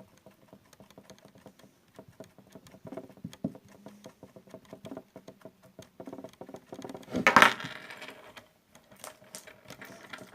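Many small, quick clicks and crackles of close handling, with a louder rustling burst about seven seconds in.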